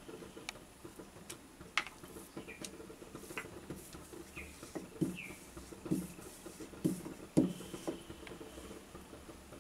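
Wooden rolling pin rolling out a small round of luchi dough on a marble board: soft rolling and scraping with scattered light clicks, and several low knocks in the second half, the loudest one near the end.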